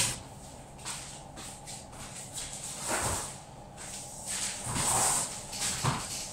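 Person moving about a kitchen: soft shuffling and rustling handling noises in a few separate swishes, about three seconds in, around five seconds and again near the end.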